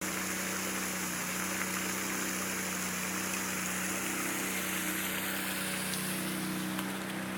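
A water pump running with a steady hum over the even rush of pumped water.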